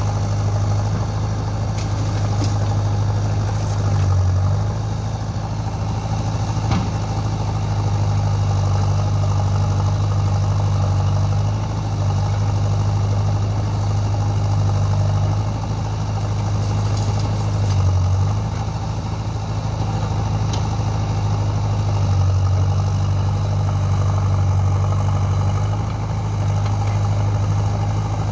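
Diesel engines running steadily: an Eicher tractor idling close by with the JCB 3DX backhoe loader's engine working behind it. The deep hum is steady, with its note shifting briefly a few times as the loader works.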